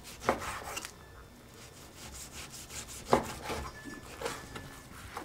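Chef's knife slicing through raw beef and knocking on a wooden cutting board: a handful of short sawing strokes and taps with pauses between.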